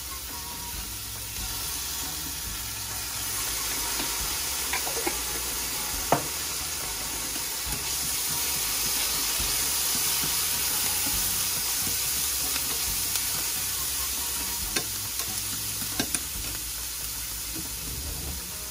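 Chopped onion sizzling in a stainless steel frying pan, stirred with wooden chopsticks that click against the pan now and then. The sizzle grows louder a few seconds in.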